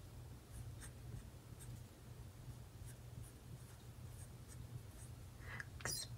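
Faint scratching of a Sharpie pen writing letters on paper: a series of short, soft strokes over a low steady hum.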